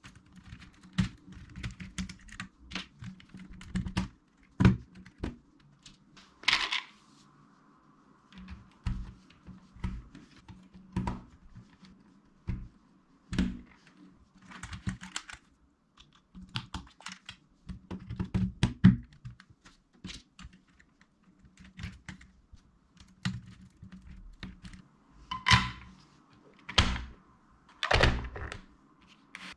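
Hard plastic Lego Technic parts clicking and clacking as they are handled and pressed into place, with irregular knocks. Near the end come a few louder scrapes and thuds as plastic containers of weights are set on the lift.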